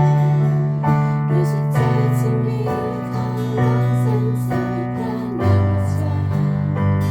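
Music from a worship song: keyboard chords over sustained bass notes, the harmony changing every second or two.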